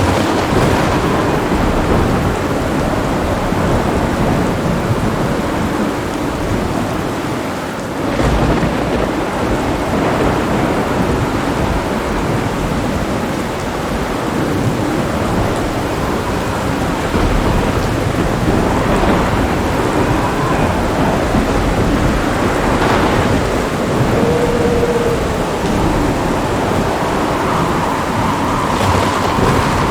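Thunderstorm: steady heavy rain with continuous rolling thunder rumbling underneath, and a sudden louder burst of thunder about eight seconds in.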